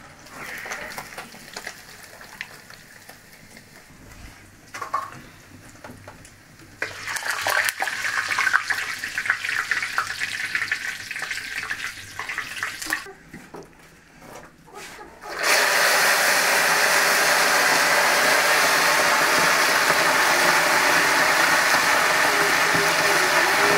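Fish frying in hot oil, crackling, louder in the middle. After a short break it gives way to a steady, loud hiss.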